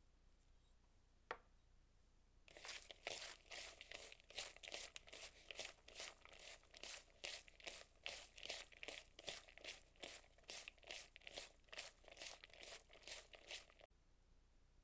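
Thinly sliced onion being rubbed and squeezed by hand with salt in a mixing bowl: a rhythmic wet crunching, about two or three squeezes a second, that starts a couple of seconds in and cuts off near the end. A single light tap comes about a second in.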